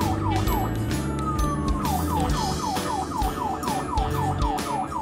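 Ambulance siren in fast yelp mode, about seven quick falling sweeps a second. About a second in the yelp gives way to one slower falling tone, then the fast yelp resumes near two seconds in.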